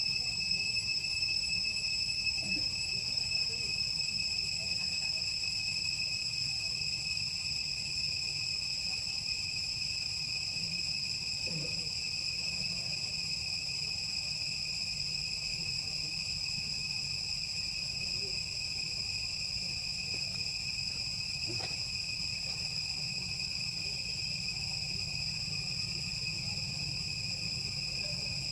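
Steady, unbroken high-pitched drone of insects, one held tone with no pulsing, over a low background rumble.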